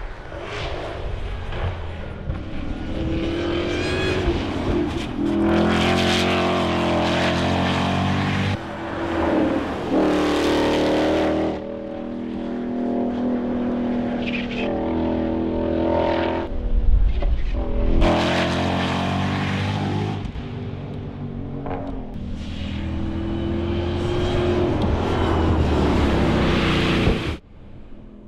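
The 2025 Ford Mustang GTD's supercharged 5.2-litre V8 accelerating hard, its pitch climbing up through each gear and dropping at the shifts. It comes as several separate runs that break off abruptly, the last cutting out about a second before the end.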